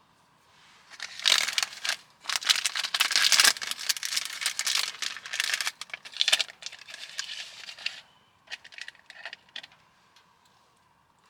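Close-up crinkling and rustling of crinkly material being handled, dense for several seconds and then thinning to a few separate crackles.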